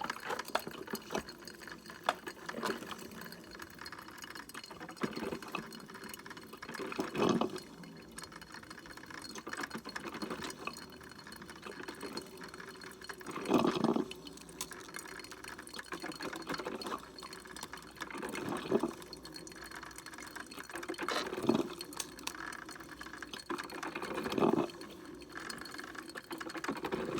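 Mr. Coffee 5-cup drip coffee maker brewing: hot water gurgling and sputtering up through the brewer in surges every few seconds, with small crackles and drips between.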